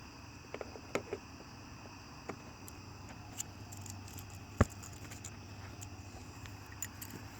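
Loose chainsaw chain being handled, its metal links giving scattered light clicks and rattles, with one sharper click about halfway through.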